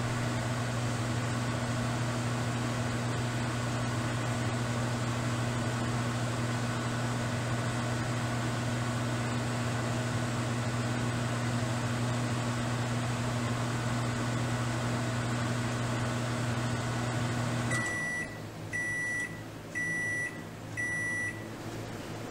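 Microwave oven running with a steady hum that cuts off about 18 seconds in, then four short, high beeps about a second apart: the end-of-cooking signal.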